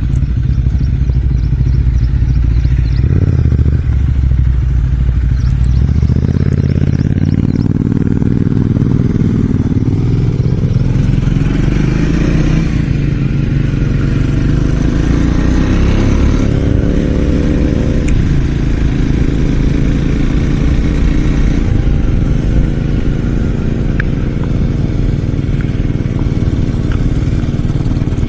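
Triumph Scrambler 400 X's single-cylinder engine and raw exhaust while riding. The pitch climbs steadily for about twelve seconds as the bike pulls, then drops off suddenly and the engine runs on at a lower, steadier speed.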